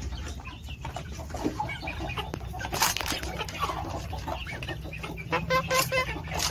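A flock of young kampung chickens clucking, with short calls scattered throughout and a louder run of about four clucks near the end.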